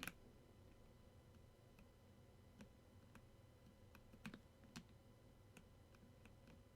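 Faint, widely spaced single key presses on a Redragon 60% mechanical keyboard fitted with Akko Bittersweet tactile switches, each a soft click about every half second to a second, as keys are pressed slowly to feel the tactile bump.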